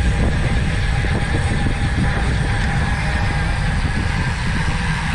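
Steady wind rushing over the microphone with road and vehicle noise while riding on the move.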